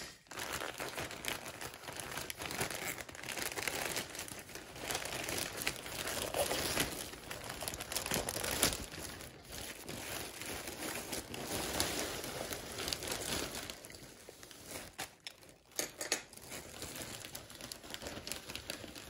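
Plastic mailer bag crinkling and tearing as it is slit open with a utility knife and pulled back, with the clear plastic wrap underneath rustling. It goes quieter for a moment about fifteen seconds in.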